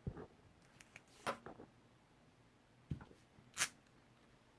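Craft supplies being handled on a tabletop: a few faint, brief rustles and taps, with a soft thump at the start and a sharper crinkle near the end.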